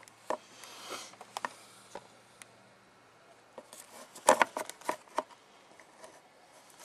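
Fingers handling a small sensor taken off the engine, close to the microphone: light rubbing and scattered small clicks, with a quick run of louder clicks a little past the middle.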